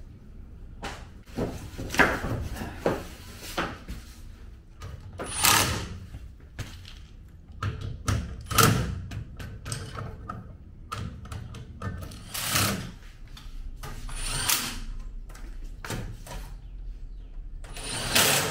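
Scattered knocks, clunks and scrapes from a steel rolling tool cabinet being tipped over and fitted with casters, with several short bursts of a cordless drill driving the caster screws.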